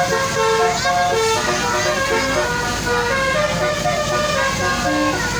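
Basuri-type multi-tone telolet horn playing a tune as a string of short held notes at changing pitches.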